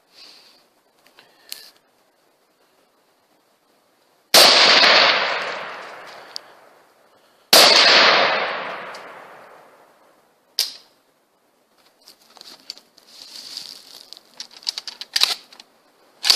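Two loud rifle shots about three seconds apart, each cracking sharply and rolling away over two to three seconds, then a shorter, weaker shot about three seconds after the second.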